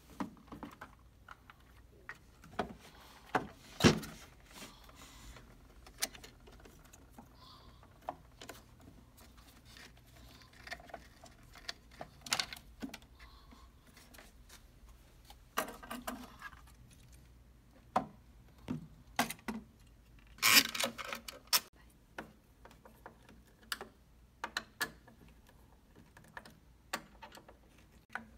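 Door lock parts being handled and fitted by hand: scattered metal and plastic clicks, taps and rattles, with one sharp knock about four seconds in and a busier cluster about twenty seconds in.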